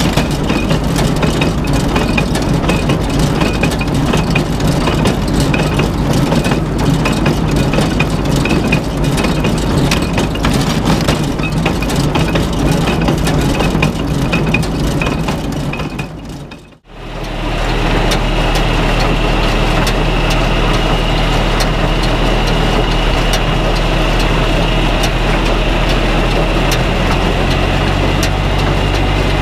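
Small square baler working hay behind a tractor, its plunger and feed mechanism clattering and knocking over the engine. After a brief dropout just over halfway, the tractor's engine runs steadily with the baler's strokes ticking through at a regular pace.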